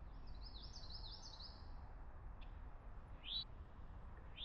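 A small songbird singing faintly: a quick run of high, sliding chirps over the first two seconds, then single rising chirps about three seconds in and again at the end, over a low outdoor rumble.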